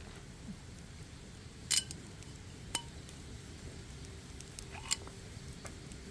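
Glassware clinking: three short sharp clinks, the second with a brief ring.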